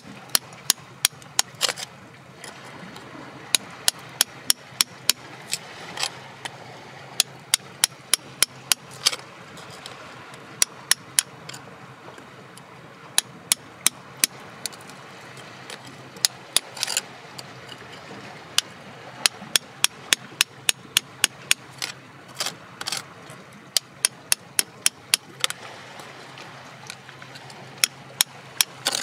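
Small pointed hand tool chipping and tapping at rock and packed dirt: sharp clicks in irregular runs of several a second, with short pauses between runs.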